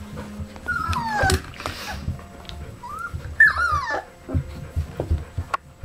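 Golden retriever puppies about three and a half weeks old whining in short, high, sliding cries as they play-wrestle. There are a couple of falling whines about a second in and a longer wavering one midway. Scuffling and soft bumps from the puppies tumbling together run underneath.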